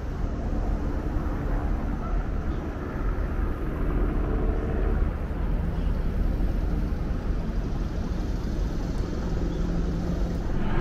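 Steady low rumble of distant engine noise, with a few faint humming tones in it.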